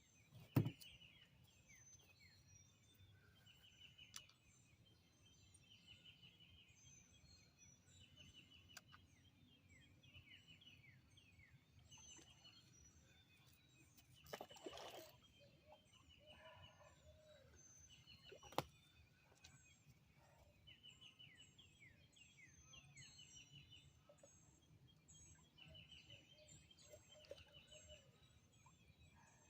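Faint dawn chorus of several wild birds, with short chirps and trills repeating throughout. A few knocks, one sharp one about half a second in and another past the middle, and a short rustle near the middle.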